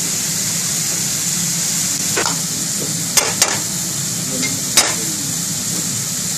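Thick creamy cashew curry simmering and sizzling in an aluminium pan on a gas burner, over a steady high hiss and a low hum. A few sharp clicks stand out in the middle.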